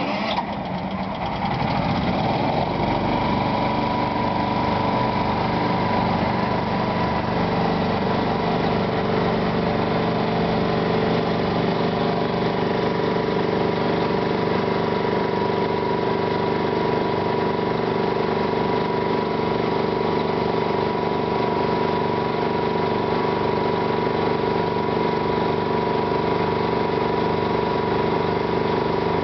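Engine of the pump unit on an M715 fire truck starting up and then running steadily at a constant speed, with a steady high whine on top, while it pumps water to a hose.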